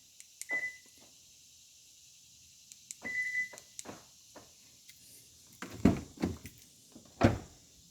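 Two short high-pitched beeps a few seconds apart, then a quick series of clunks and knocks: the Hyundai Genesis's power door locks being worked from the remote key fob to check the newly replaced door lock actuator.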